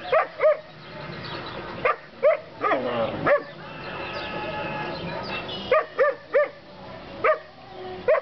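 A small dog barking in quick high yaps, in bursts of two or three, with a longer drawn-out yelp about three seconds in.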